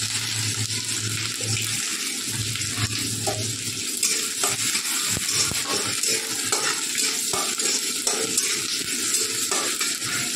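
Ginger-garlic paste sizzling steadily in hot oil in a kadai, stirred with a metal spatula that scrapes and taps against the pan now and then.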